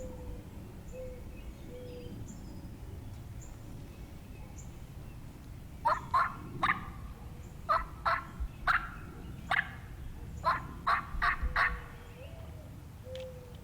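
Wild turkeys calling in spring woods: after a quiet stretch, a string of about a dozen short, sharp, loud calls in three quick bunches, starting about six seconds in.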